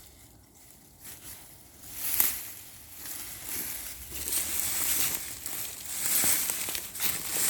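Wood-chip mulch and sweet potato vines rustling and crunching as they are dug through and pulled apart, starting faint and growing louder about a second in, with a sharp crunch about two seconds in.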